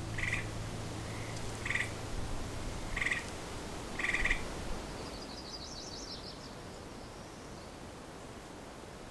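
Outdoor ambience with short trilled calls typical of a tree frog, repeated four times about a second and a half apart. A brief high chirping bird phrase follows about five and a half seconds in. The last low note of the music dies away under the first couple of seconds.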